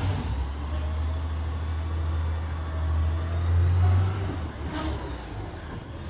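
Garbage truck engine running with a deep low rumble that builds to its loudest about four seconds in, then eases off as the truck moves along the street. The truck is a McNeilus ZR refuse truck on a Crane Carrier LET2 chassis.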